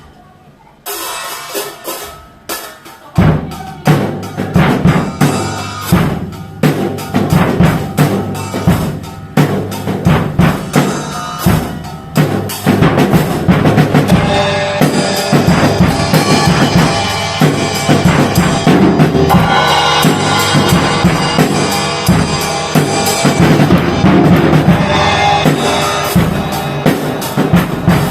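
Drum kit played with a set of Armada Achilles AXL cymbals: a few scattered hits, then a steady groove of kick and snare from about three seconds in, with cymbals crashing and washing over it. The cymbal wash grows thicker and denser about halfway through.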